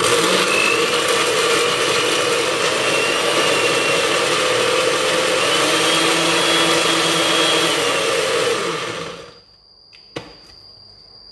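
Electric blender grinding fresh red chillies and bird's eye chillies into paste. It runs steadily for about nine seconds, then winds down as it is switched off. A single click follows about a second later.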